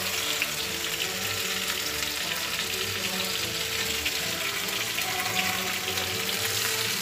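Stuffed tomatoes frying in hot oil in a kadai: a steady sizzle with continual small crackles.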